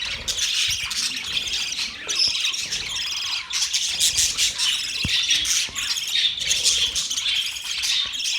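A flock of budgerigars chattering, many high calls overlapping without a break.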